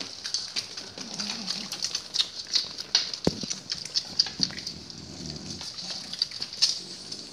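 Dogs licking and shuffling close by on a wooden floor: a fast, irregular patter of small wet clicks, with one low thump about three seconds in.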